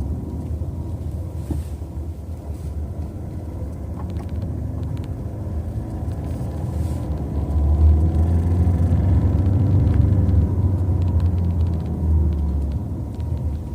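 Seat Ibiza 1.6 TDI 105 hp four-cylinder diesel engine running with a heavy low rumble, its pitch slowly rising and falling and loudest about eight to ten seconds in, with a faint steady whine above it. The owner finds the engine noise strange.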